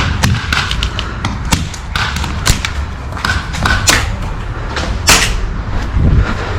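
Airsoft guns firing irregular single shots: a scattered run of sharp cracks and knocks, loudest about two and a half, four and five seconds in.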